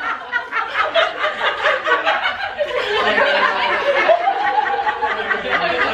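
A large group of women laughing together, many voices overlapping in giggles and chuckles. In the second half one voice holds a long, steady note over the laughter.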